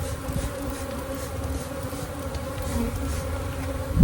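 A mass of package honeybees buzzing in a steady hum, with a low rumble underneath.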